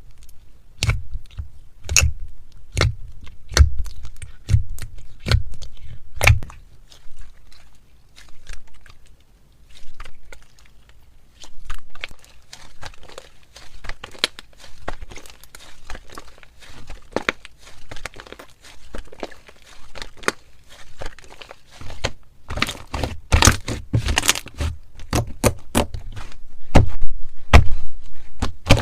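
Metallic slime mixed with ice being squeezed and pressed by hand: irregular crackling clicks and crunches, coming thicker and louder in the last several seconds.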